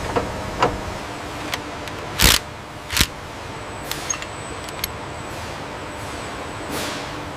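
Factory floor ambience: a steady machinery hum with a scattering of sharp knocks and clanks, the two loudest about two and three seconds in.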